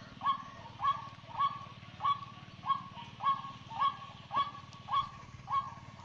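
White-breasted waterhen (ruak-ruak) calling, a croaking "kru-ak" repeated very evenly about every 0.6 s.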